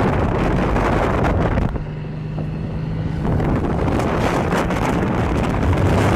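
Wind rushing over the microphone of a moving cruiser motorcycle, covering the engine. For about a second and a half, around two seconds in, the wind eases and a steady engine hum comes through before the rush returns.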